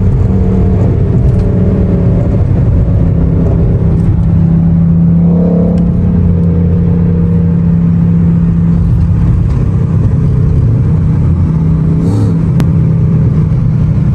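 Mercedes-Benz W124 E500's M113 V8 engine and exhaust running loud at steady, fairly constant revs, a continuous deep drone.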